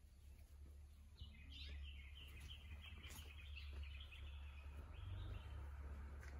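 Faint chirping of small birds, a busy twittering that starts about a second in and fades near the end, over a low steady hum.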